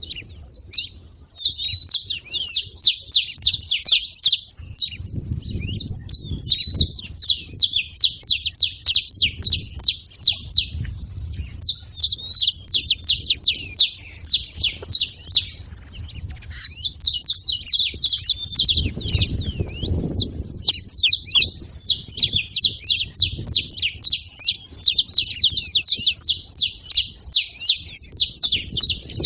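A flock of saffron finches (canário-da-terra) chattering at a feeding spot: dense, rapid high chirps from many birds at once, with only brief pauses.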